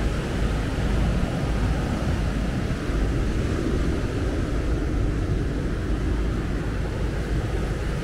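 Wind buffeting the microphone as a steady low rumble, with the wash of waves breaking on the shore.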